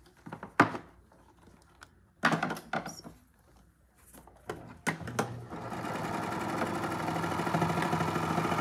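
A few knocks and clicks as the fabric is handled, then a Baby Lock Victory serger starts about five and a half seconds in and runs steadily, stitching and trimming fabric, growing a little louder.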